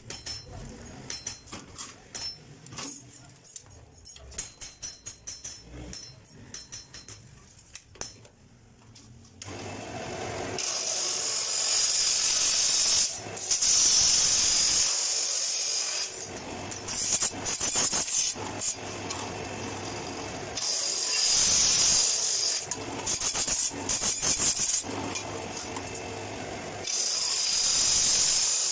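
Abrasive cut-off saw cutting stainless steel square tube. Light clicks and knocks at first, then the disc motor starts running about a third of the way in. The disc bites into the steel in several bursts of a couple of seconds each, with a high hissing screech while it grinds through.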